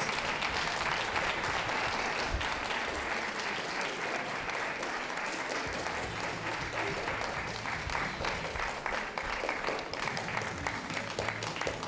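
Audience applauding steadily, the clapping thinning into more separate claps toward the end.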